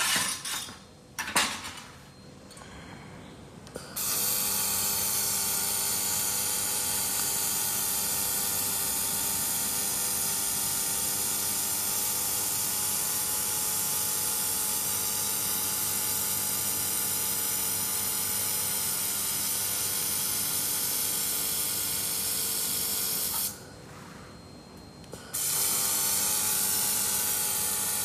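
A few knocks, then a handheld fiber laser head firing on a steel sheet: a steady hiss with a constant whine. It breaks off for about two seconds near the end and starts again.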